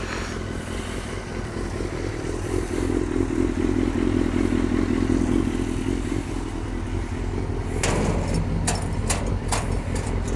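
A steady low rumble runs underneath, swelling louder for a few seconds, then a quick run of sharp metallic clicks and knocks near the end as the sheet-steel garage doors and their padlock are handled.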